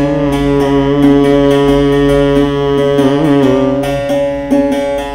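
A man's voice holds one long sung note of a devotional bhajan over a long-necked plucked string instrument played in steady strokes. The held note ends about four seconds in, leaving the plucked strings.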